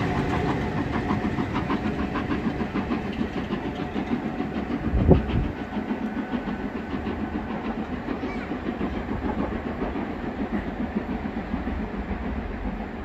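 Passenger train with Class 47 diesel locomotive 47802 on the rear pulling away, its wheels clattering rhythmically over the track and slowly fading. A single loud low thump about five seconds in.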